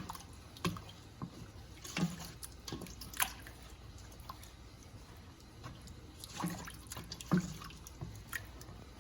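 A utensil stirring a thin milk-and-broth sauce in a skillet: irregular wet sloshes and clicks of the utensil against the pan as the sauce is worked to thicken.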